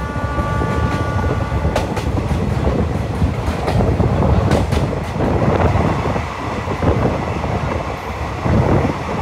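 Passenger train running along the track, heard from an open doorway: a steady rush of wheel and track noise with clicks as the wheels pass rail joints. A faint steady high tone sounds in the first two seconds. The noise grows louder near the end as the train runs into a tunnel.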